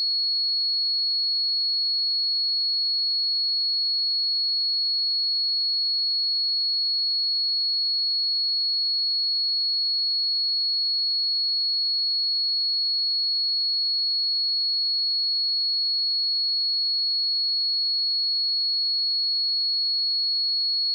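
A steady, unbroken 4346 Hz sine-wave test tone: a single high-pitched pure tone at constant level.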